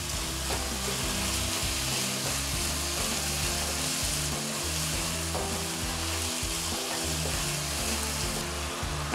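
Grated petha (ash gourd) halwa sizzling in ghee in a wok while it is stirred with a wooden spoon, just after sugar has been added and is melting into syrup. Low background music runs underneath.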